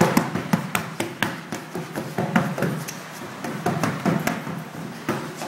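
Taped hands punching and slapping a large inflated exercise ball, a quick irregular run of sharp smacks, densest in the first couple of seconds and sparser after.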